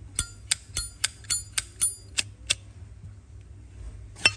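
Metal Zippo lighter being handled: a quick run of about nine sharp metallic clicks, about four a second, then one louder click near the end.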